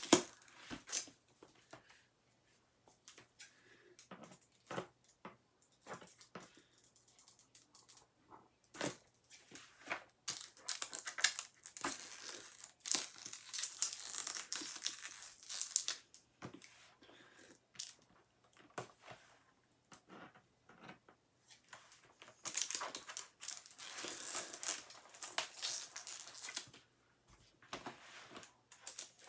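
Stiff plastic wrap crinkling and tearing as hands pull at it, in irregular bursts of rustling with sharp clicks and short quiet pauses; the wrap is stubborn and does not come off easily.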